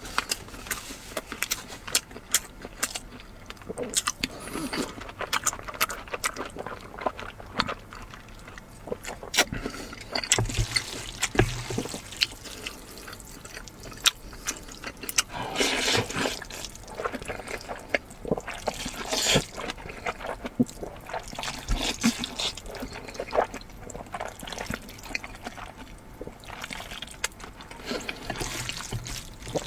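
Close-miked eating sounds: wet chewing and slurping of saucy food, with many small mouth clicks and smacks coming irregularly throughout.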